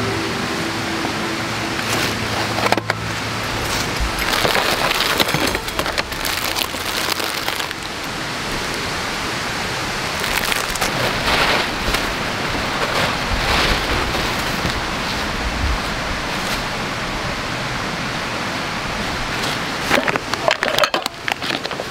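A steady rushing noise, with brighter swells now and then, and a quick run of crinkles and clicks near the end as packaged camping gear in a plastic crate is handled.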